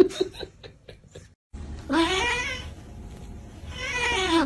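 A grey cat meowing: two long, drawn-out meows about two seconds apart, each rising then falling in pitch.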